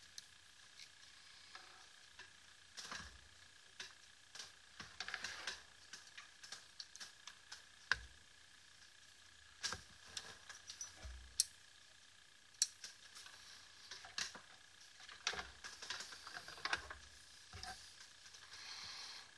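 Small irregular clicks, taps and scrapes from metal tweezers and fingers working the side-switch circuit board in a BLF Q8 flashlight, with a faint steady high whine underneath and a brief hiss near the end.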